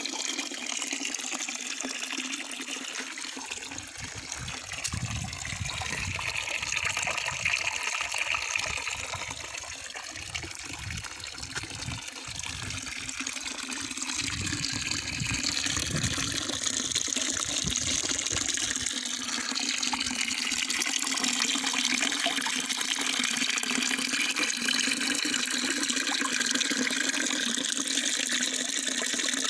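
Running water: a steady rushing splash that grows a little louder about halfway through.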